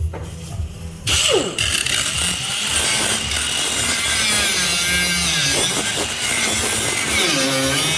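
Power saw cutting: it starts about a second in and runs loud and steady, its pitch wavering slightly under load.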